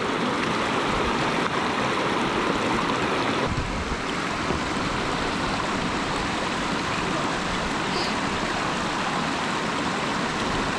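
Stream water rushing steadily over stones, a shallow creek at a crossing point.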